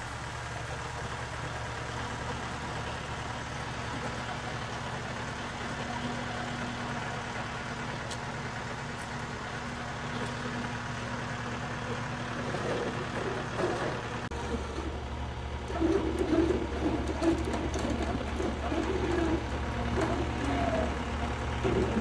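Flatbed tow truck's engine running at a steady idle while the bed is tilted into a loading ramp; a steady low hum, with a faint whine that stops about twelve seconds in.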